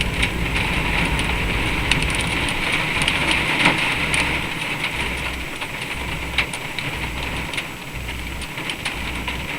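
Hail falling steadily: a dense hiss of many small ice stones striking, with sharp separate ticks from single stones, easing slightly after about five seconds.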